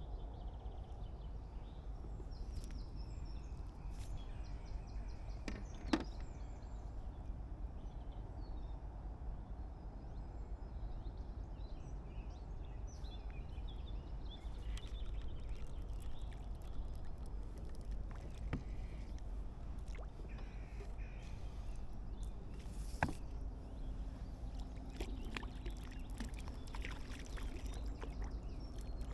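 Outdoor pond-bank ambience: a steady low rumble with faint birdsong, broken by a couple of sharp clicks, one about six seconds in and one near the two-thirds mark.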